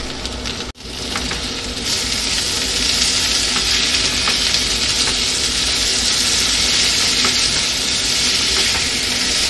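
Tomato wedges and sliced onions sizzling in hot oil in a stainless-steel kadhai while being stirred with a spatula, with a few faint scrapes and taps. The sizzle cuts out briefly just under a second in, then comes back louder and holds steady.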